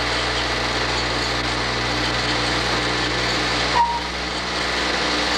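Steady loud hiss with a low hum from an old film soundtrack running under a countdown leader, with one short beep about four seconds in: the sync pop at the '2' of the countdown.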